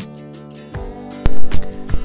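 Gentle background music on plucked acoustic guitar. In the second half, several loud sudden knocks or scrapes sound over it.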